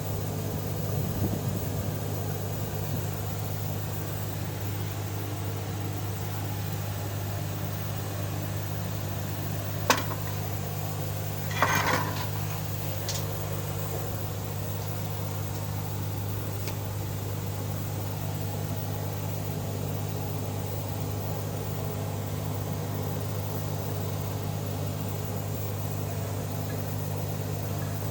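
A steady low mechanical hum from a machine running without change, with one sharp click about ten seconds in and a short clatter about two seconds later.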